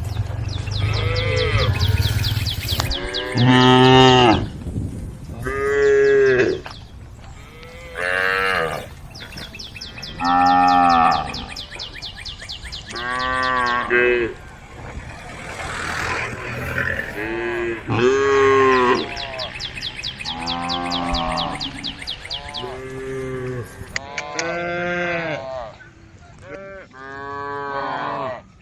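Cows mooing over and over, a call about every two to three seconds, each lasting about a second, as the cows call to the herd.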